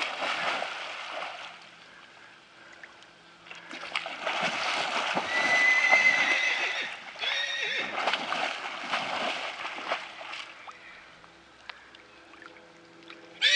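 A horse wading through a shallow river, the water splashing and sloshing around its legs in two spells, briefly at first and then for several seconds in the middle. A horse whinnies loudly at the very end.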